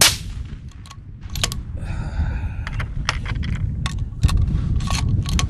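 A suppressed 6mm ARC bolt-action rifle fires once right at the start, followed by a string of sharp metallic clicks and clinks with a short rasping slide about two seconds in, as the bolt is worked and cartridges are handled.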